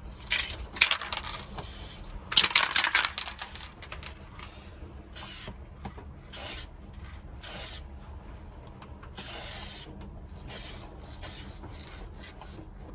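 Aerosol spray paint can hissing in a series of short bursts. The first two bursts last about a second each, and the rest are quicker puffs.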